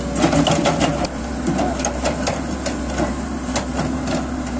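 Komatsu hydraulic excavator's engine running under a dense, irregular clatter of sharp clicks and knocks as its bucket works into the soil.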